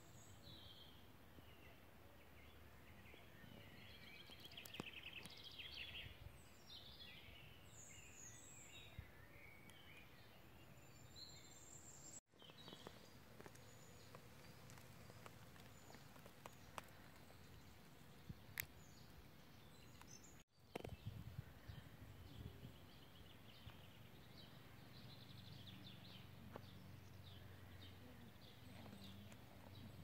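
Faint birdsong, several small birds chirping and trilling in woodland, busiest in the first dozen seconds and thinner later, over a low steady outdoor hiss; the sound cuts out briefly twice.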